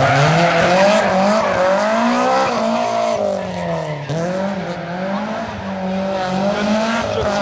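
Rally car engine driven hard through a corner, its revs dipping and climbing several times as the driver lifts off and accelerates, with tyres squealing on the tarmac.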